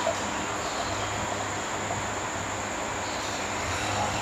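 Sparkling grape juice being poured from the bottle into a wine glass, a steady hissing pour and fizz, under a thin high-pitched whine and a low hum.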